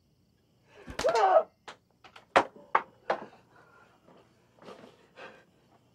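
A person's sharp cry, then a quick run of about five hard knocks and thuds within a second and a half, followed by softer shuffling noises near the end.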